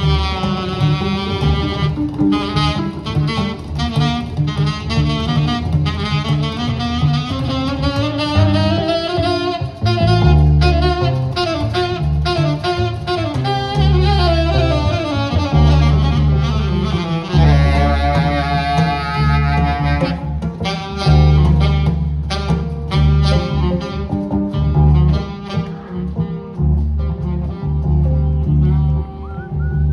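Live jazz: a saxophone plays a melodic solo over a plucked double bass and acoustic guitar. The bass notes grow heavy and steady from about ten seconds in, and the saxophone line thins out near the end.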